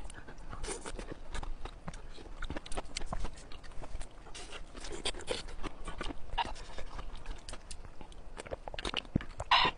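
Close-miked eating: chewing with many small wet mouth clicks and crunches. Near the end comes a sip and swallow from a glass.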